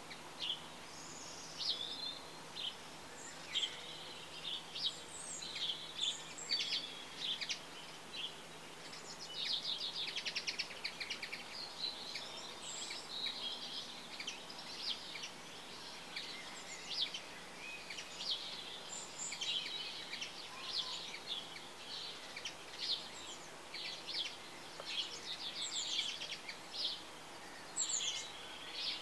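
Small birds chirping and singing: a busy run of short, high calls and quick trills over a faint steady background noise.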